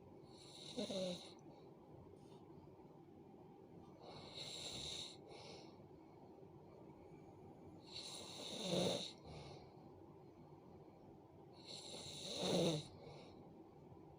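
A sleeping person snoring, one rasping, hissing breath about every four seconds, four in all, the last two the loudest.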